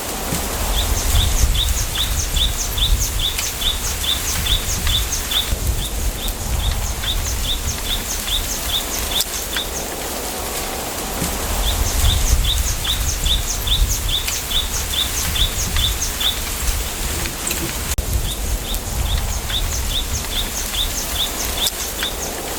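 Spring bamboo-grove ambience: a small bird repeats a high chirp about four times a second in bouts of several seconds with short pauses between. Under it runs a steady low wind rumble.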